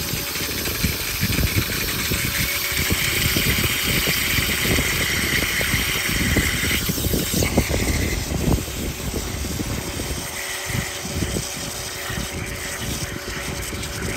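A 1400 PSI pressure washer running, its pump motor going steadily while the jet hisses against the stone of a bird bath. The spray hiss is loudest in the first half and changes about seven seconds in as the jet is moved.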